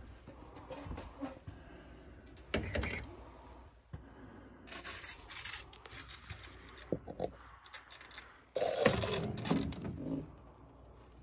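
A suspended-ceiling tile being pushed up and shifted on its metal grid: irregular scrapes, knocks and rustles, loudest a little before the end.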